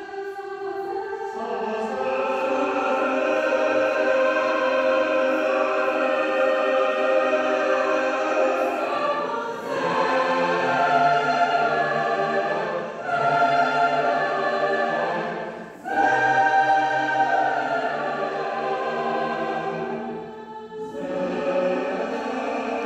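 Mixed chamber choir singing unaccompanied in sustained chords, with brief breaks between phrases.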